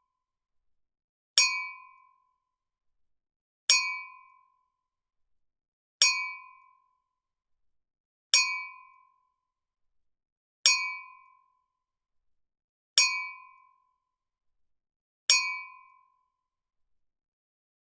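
Wine glasses clinking together in a toast, seven identical clinks about every two and a half seconds, each ringing briefly with a clear tone.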